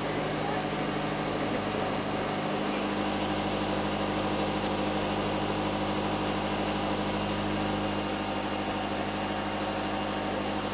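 Narrowboat's diesel engine running steadily at low cruising revs while the boat motors along the canal, a low, even drone.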